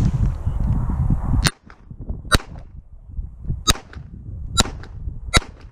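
Five sharp .22LR pistol shots from a Ruger Mark III 22/45, spaced roughly three-quarters of a second to a second and a half apart. A steady low rumble cuts off just before the first shot, about a second and a half in.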